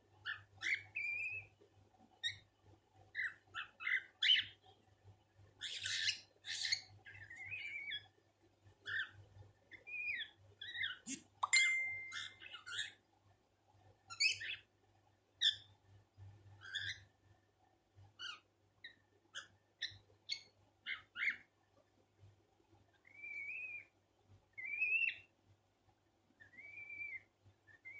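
Pet cockatiel calling: a long string of short chirps and whistled notes, many gliding up and down in pitch, mixed with a few harsher squawk-like calls, in imitation of a parrot.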